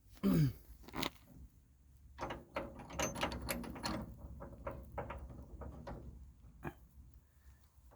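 Hand work on metal truck suspension parts: a series of clinks, knocks and rattles, bunched together a couple of seconds in. Near the start comes one short squeak that falls in pitch.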